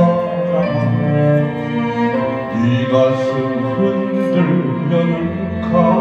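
Korean trot song accompaniment from a backing track, a bowed-string melody over bass.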